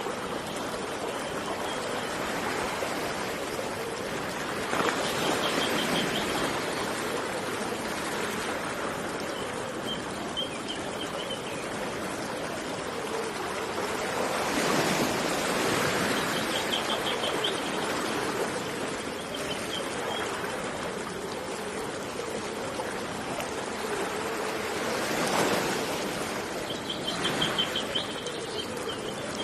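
Running water with waves swelling and washing in about every ten seconds, while a small bird repeats a short, rapid, high trill several times.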